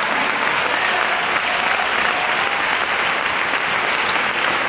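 Large congregation applauding steadily.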